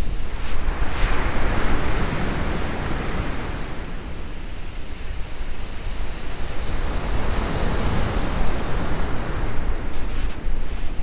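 Waves breaking on a beach: a steady rush of surf that swells and eases over a few seconds, with some wind on the microphone.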